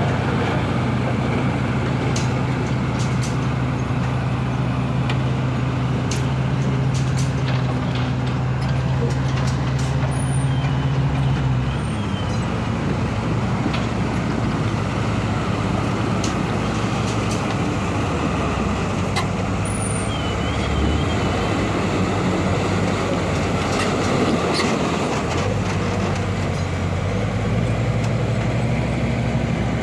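Diesel engine of heavy road-construction machinery running steadily under work. Its note drops about twelve seconds in and climbs again near the end, with scattered clanks.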